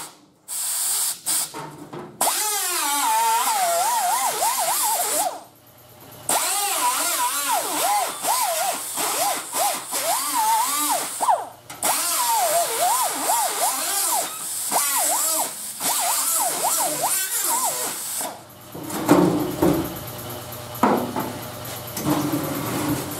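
Die grinder cutting through thin, rusted car-body sheet steel, a high whine that wavers in pitch as it bites, with a hissing edge. It stops briefly about three times and restarts, then drops to a quieter, lower sound near the end.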